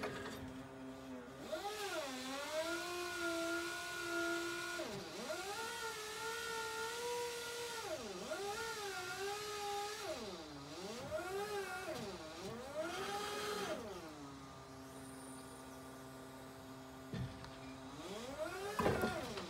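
Toyota 7FBMF40 electric forklift's motor whine, its pitch rising and falling again and again as the forks and mast are worked. There are bursts of hiss along with it, a steadier hum for a few seconds near the end, and then a knock and a fresh rising whine.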